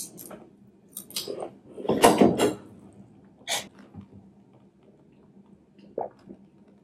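Handling noises at the table: clicks, rustling and scraping as a foam takeout box and a paper napkin are moved, loudest about two seconds in. Near the end come a few soft gulps of drinking from a can.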